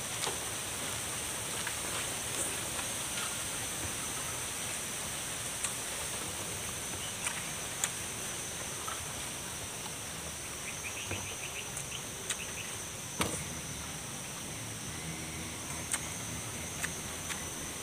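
Steady high drone of insects, with scattered short clicks of chewing and handling raw vegetables. The sharpest click comes about 13 seconds in, and there is a brief run of quick ticks around 11 seconds.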